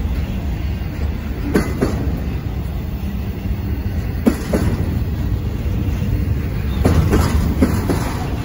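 Intermodal freight train's well cars, loaded with containers and trailers, rolling past: a steady low rumble of wheels on rail, with a few sharp clacks scattered through it.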